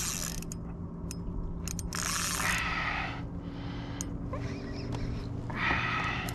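Spinning fishing reel ratcheting and whirring in spells as line is worked against a hooked red drum, over a steady low hum.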